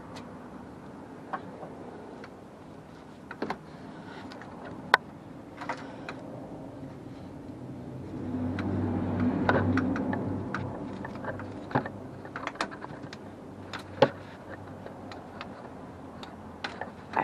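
Hand work on a van's engine while the auxiliary drive belt is fed back onto its pulleys: scattered sharp clicks and knocks of tools and the belt against metal, with a low rumble swelling for a couple of seconds about halfway through.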